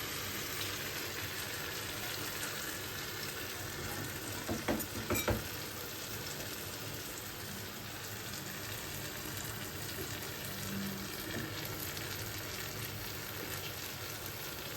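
Tomatoes frying in a pan with a steady sizzle. A few short knocks, like a utensil against the pan, come about four to five seconds in.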